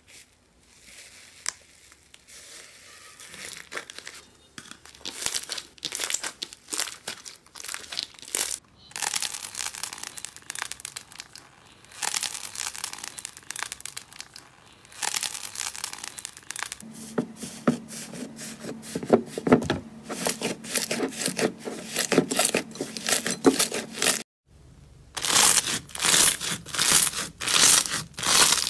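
Crunchy slime being squeezed and pressed by hand: dense, crisp crackling and crunching, broken by sudden cuts about 9 and 24 seconds in, with a steady low hum under the crackling for several seconds in the middle section.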